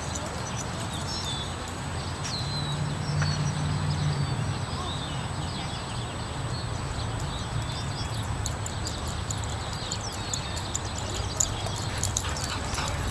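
Open-air ambience: a steady low rumble that swells for a couple of seconds early on, with small bird chirps high above it. Light quick ticks and taps build up in the second half as the Brittany trots back across the dirt field.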